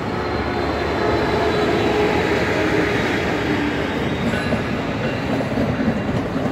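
Amtrak train led by a Siemens SC-44 Charger diesel locomotive rolling past at close range, its wheels running on the rails in a loud, steady rolling noise. The noise builds over the first second or two as the locomotive goes by and the coaches follow.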